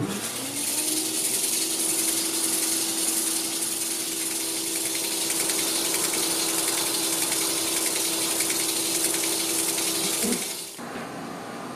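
Automatic metallographic grinding and polishing machine: its platen motor spins up at once to a steady hum, with a loud steady hiss of water and grinding as resin-mounted steel shot specimens are pressed onto the turning platen. Shortly before the end the motor winds down and the hiss stops suddenly.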